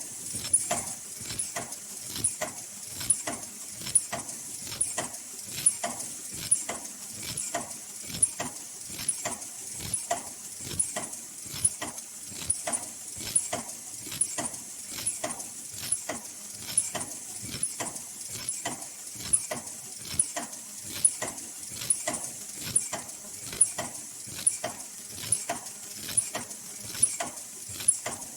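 High-speed automatic N95/FFP2 mask production line with inline packing, running: a steady, even rhythm of mechanical clicks and clacks with a louder clack about once a second.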